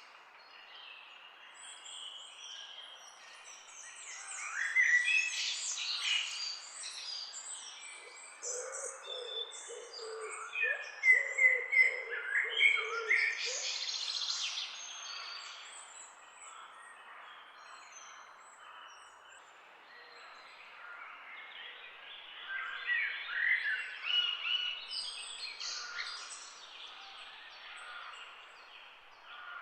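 Several songbirds chirping and singing at once, with short overlapping calls and quick pitch glides. The activity swells and fades, with busier stretches a few seconds in, around the middle and again near the end, and a run of lower notes in the middle.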